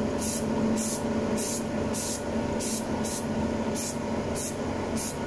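Aerosol spray paint can hissing in short bursts, about two a second, as a propeller is spray-painted white. Underneath, the steady hum of a wall extractor fan.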